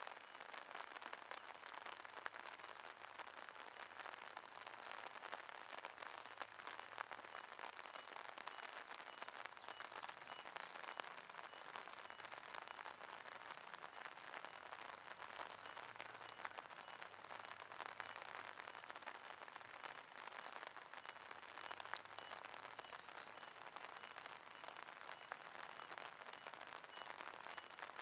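Steady light rain pattering on ditch water and grass: a soft even hiss made of many tiny drop impacts.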